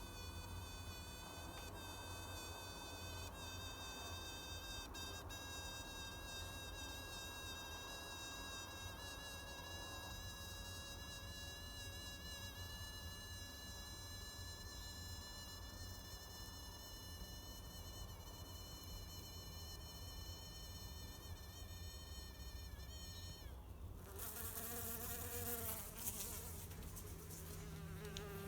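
A weird high-pitched whine from small flying insects gathered under a porch roof: one steady, piercing tone with overtones, like a sonic pest deterrent, creeping slightly upward in pitch. About 24 seconds in it stops, and a rushing noise with a lower, wavering buzz follows.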